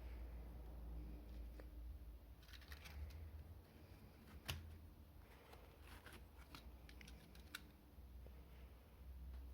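Faint, scattered clicks and short rustles of small plastic parts and packaging being handled during the unboxing of an N-gauge model train, with one sharper click about halfway through.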